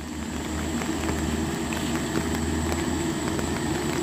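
Truck engine running steadily as the truck approaches, growing a little louder about half a second in.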